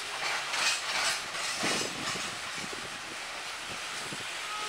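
Coal hopper cars of a freight train rolling past: a steady rush of wheels on rail with irregular clicks and clunks, most of them in the first two seconds.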